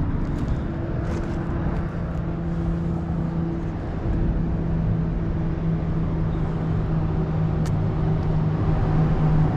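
A steady mechanical hum over a low, even rumble, with a single faint click near the end.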